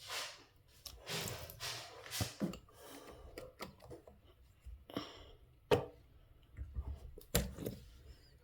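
Handling noises from the plastic water bottle and its drinker fittings: a run of short swishes and rustles, then a few sharp knocks and clicks.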